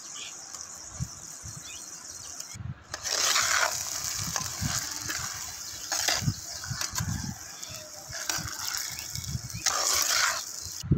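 Chicken pieces sizzling in oil in a clay pot while a metal spatula stirs them, with scraping sweeps and dull knocks against the pot.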